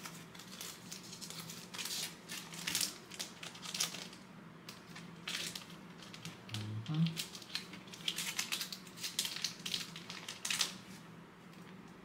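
Trading cards and plastic card sleeves being handled: a run of light crinkles and clicks that stops shortly before the end.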